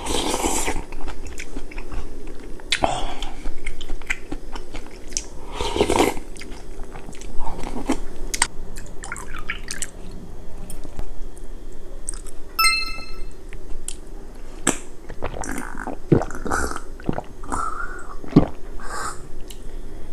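Close-miked eating: spoonfuls of beef-head gukbap broth sipped and kimchi chewed, with clicks of the spoon against the stone bowl. Past the middle a glass clinks briefly once and soju is poured from a glass bottle into a shot glass.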